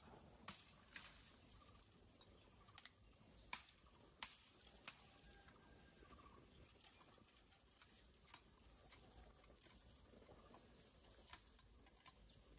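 Quiet background with about a dozen short, sharp clicks or taps at irregular intervals.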